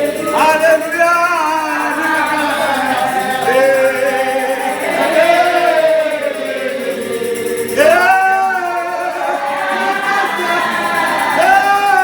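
Group of voices singing a gospel hymn together, with long held, gliding notes.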